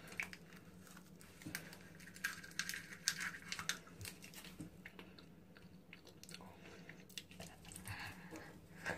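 Faint mouth sounds and plastic wrapper crinkling while someone squeezes sour candy from a small packet into his mouth: scattered small clicks and smacks.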